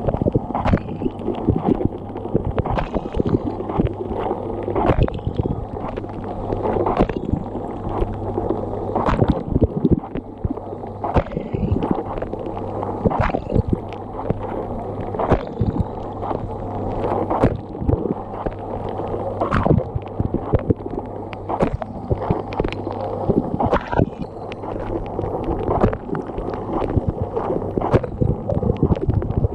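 Dishwasher running its wash cycle, heard from inside the tub: a steady low hum from the circulation pump under constant water spraying and splashing, with irregular sharp spatters and knocks as jets hit the walls and racks.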